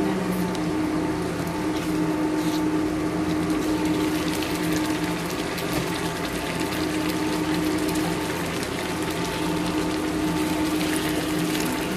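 Milkfish simmering in a tomato and black bean sauce in a pan, a steady watery bubbling under a constant electric hum.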